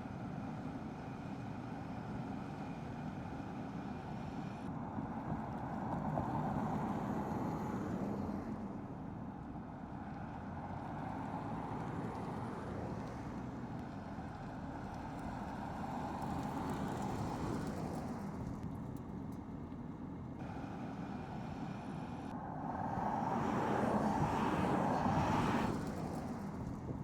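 Electric car driving past, heard mainly as tyre and road noise that swells and fades three times, loudest near the end; its motor is barely audible.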